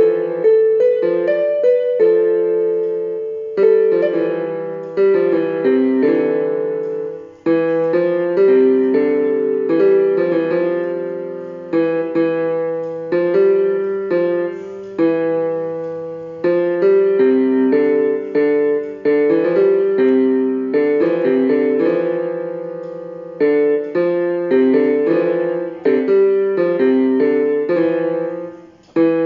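Solo piano background music: a gentle melody of struck notes, each ringing and fading.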